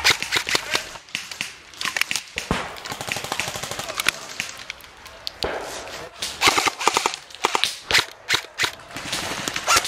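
Airsoft HK417 replica rifle firing several rapid bursts of sharp, evenly spaced clicking shots with short pauses between them, the longest burst about two thirds of the way through.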